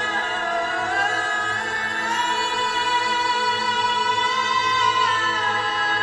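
A woman singing wordless long held notes over a sustained ambient music backing with a steady low drone. Her pitch slides up about two seconds in and steps back down near the end.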